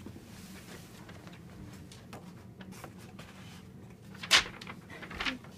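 Low steady hum with a sharp knock about four seconds in and a lighter one just before the end.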